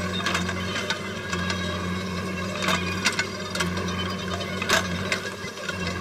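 JCB 3DX backhoe loader's diesel engine running steadily under work, with about seven sharp, irregularly spaced metallic clanks and knocks from the backhoe arm and bucket linkage as it moves.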